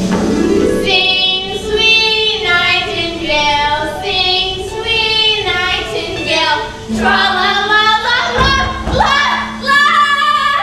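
Girls' voices singing a song on stage, drawn-out notes that bend and waver in pitch, over musical accompaniment with a steady low note held through the second half.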